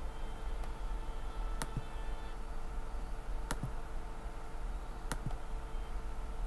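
Three sharp computer-mouse clicks, spaced a second and a half to two seconds apart, over a steady low electrical hum.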